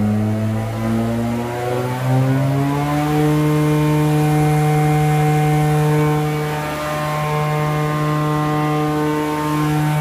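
Wadkin RM 26-inch planer's 7.5 hp three-phase motor and cutterblock winding up to speed on a slow, hard start from a rotary phase converter. The pitch rises until about three seconds in, then the machine runs at a steady pitch.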